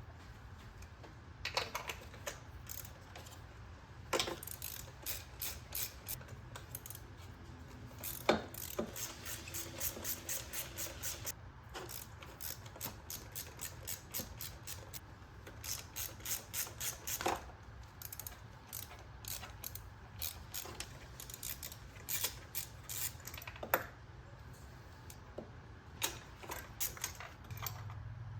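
Socket ratchet clicking in short runs of quick clicks, with separate metallic knocks, as spark plugs are unscrewed from a 3.2 VR6 engine.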